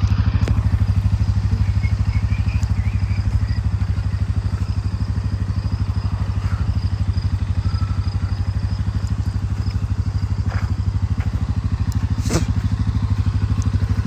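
A motor running steadily, with a low hum and a fast, even pulse, and a few light knocks over it.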